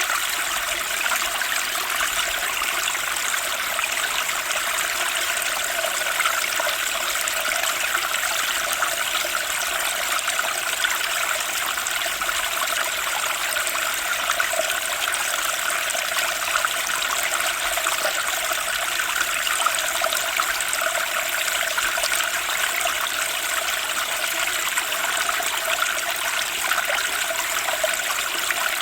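Fast-flowing spring stream rushing and splashing over rocks, a steady unbroken water noise.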